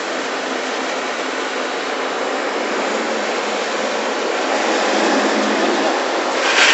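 Concrete pump truck running at work, a steady loud rushing mechanical noise that swells slightly, with a brief louder surge near the end.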